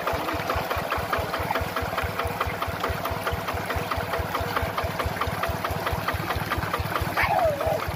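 Single-cylinder diesel engine of a two-wheel hand tractor running at idle with a steady, even chugging beat. A brief falling call cuts in near the end.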